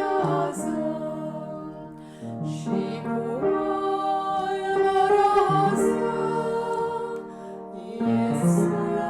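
Slow, sustained singing of a Romanian Christmas carol (colind), long held notes in phrases with short breaks about two seconds in and again near eight seconds.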